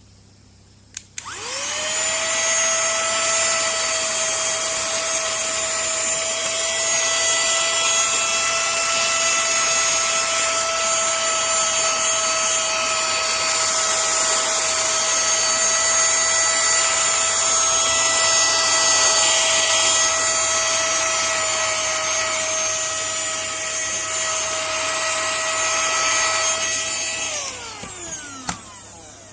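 Cordless mini vacuum / air blower switched on with a click, its small high-speed motor spinning up quickly to a loud, steady high whine. It runs steadily for most of the time, then is switched off near the end and winds down with a falling pitch.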